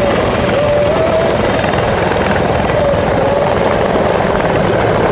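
Mil Mi-24/35 Hind attack helicopter flying a display pass: loud, steady rotor and twin-turboshaft engine noise with a turbine whine that wavers in pitch as it manoeuvres.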